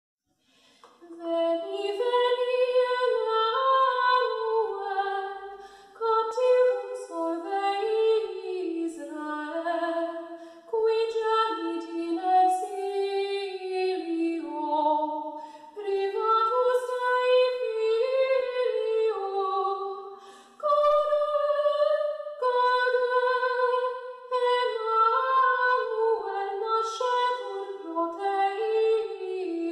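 Unaccompanied high female singing of a slow melody, starting about a second in and going in phrases a few seconds long with short breaks between them.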